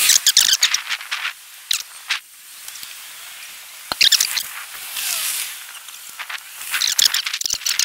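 Outdoor street sound sped up twelve times, turning into a high-pitched chatter of rapid clicks and squeaks. It comes in dense clusters in the first two seconds, again around four seconds and near the end, with a quieter hiss between.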